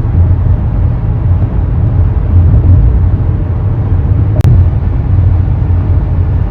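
Steady low road rumble from inside a moving car. A sharp click comes about four and a half seconds in.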